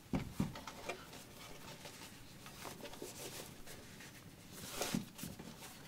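Faint rustling and sliding of a fabric drawstring bag as a computer power supply is pushed up and out of it, with a few soft handling knocks.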